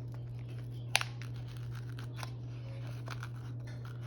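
Hands rummaging through knife packaging: light rustling and small ticks, with one sharp click about a second in, over a steady low hum.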